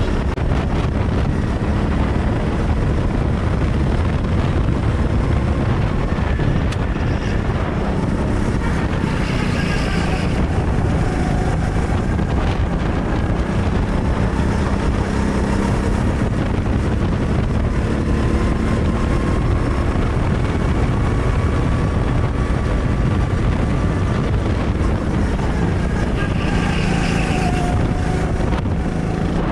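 Go-kart engine running hard as heard from on board, its pitch rising and falling with the revs through the corners, over a steady rush of wind and road noise.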